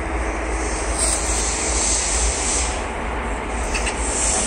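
Steady outdoor rumble and hiss with no distinct event, and a faint low hum in the first half.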